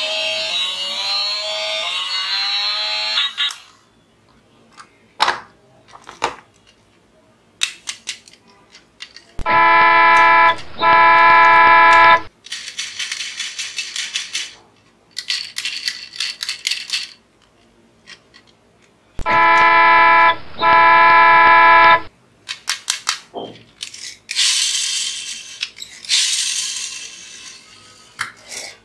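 Electronic sound effects from battery-operated plastic toy vehicles. A short jingle with gliding tones opens, then twice a loud two-part horn honk, with hissing sound effects between and near the end. Clicks of plastic toys being handled and their buttons pressed run between the effects.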